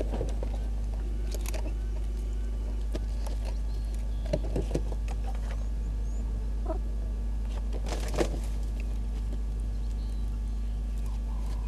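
Steady low hum of outdoor live-camera ambience, broken by a few sharp clicks: three quick ones about four seconds in and a louder single one about eight seconds in.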